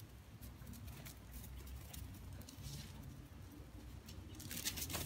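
Soft rustling and patter on dry grass and leaves, with a brief louder scuffle near the end, over a low outdoor rumble.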